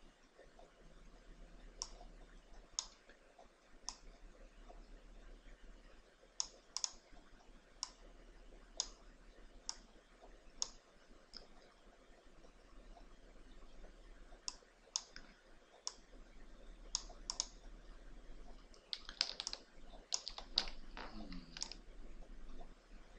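Faint, sharp single clicks of a computer mouse, often about a second apart, with a quicker run of clicks near the end.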